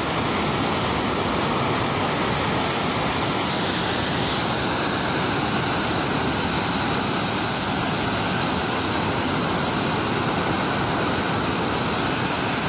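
Brown floodwater rushing through a swollen river in a steady, unbroken roar of turbulent water.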